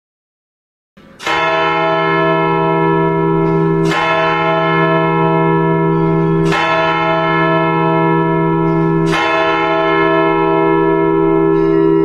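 Bell tolls opening a recorded music track: four strikes about two and a half seconds apart, each ringing on until the next, starting after about a second of silence.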